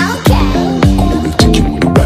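Background music with a steady beat, about two beats a second, over pitched bass and chord notes.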